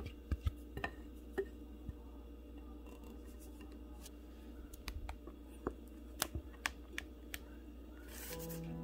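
Scattered light clicks and taps of a utensil against a glass mixing bowl while a thick cream mixture is stirred, over a low steady hum. Soft background music comes in near the end.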